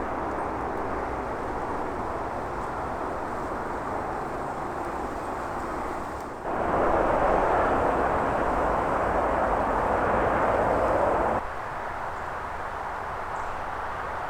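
Steady roar of road traffic from a nearby road. It grows louder and brighter abruptly about six and a half seconds in and drops back just as suddenly about five seconds later.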